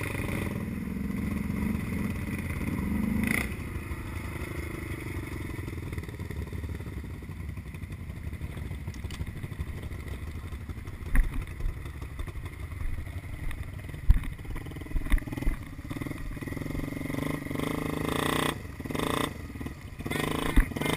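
ATV engine running, revving up briefly in the first few seconds, then running low and steady, with several sharp knocks and clatters in the second half.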